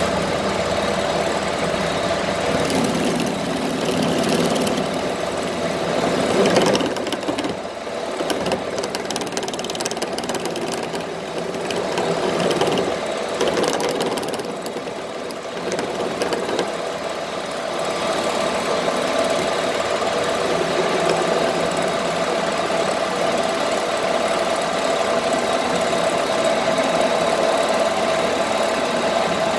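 Metal lathe running with a rod spinning in its chuck and pressed end-on against a stationary rod in a tailstock drill chuck: the friction-heating stage of a friction weld, the rubbing ends heating until the joint glows red near the end. The sound wavers in level for the first half, then settles into a steady mechanical noise with a constant whine.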